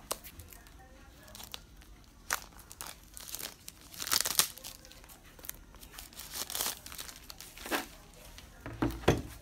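Clear plastic shrink wrap crinkling and tearing as it is peeled off a hardcover planner, in several uneven bursts. Near the end come a couple of dull knocks.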